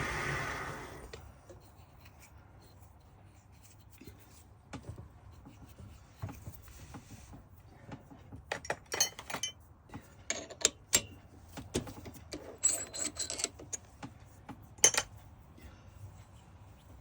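Small metal workpieces and hand tools being handled on a workbench: scattered clicks, taps and light metallic clinks, some ringing briefly, busier in the second half. A steady machine hiss fades out within the first second.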